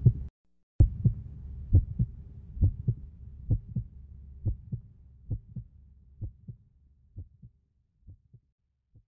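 Heartbeat, a double thump about once a second over a low hum, growing fainter and dying away near the end.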